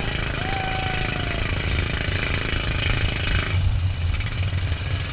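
Wind buffeting the microphone and water spray hissing as an inflatable banana boat is towed at speed, a heavy low rumble underneath. The hiss drops away about three and a half seconds in, leaving mostly the rumble.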